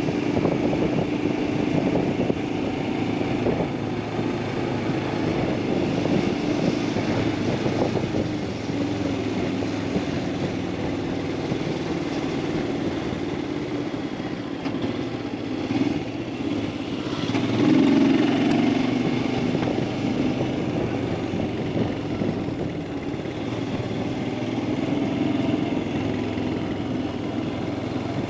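Royal Enfield Himalayan 411's single-cylinder engine running steadily as the bike rides along, with road and wind noise. The engine note grows louder for a moment about two-thirds of the way through.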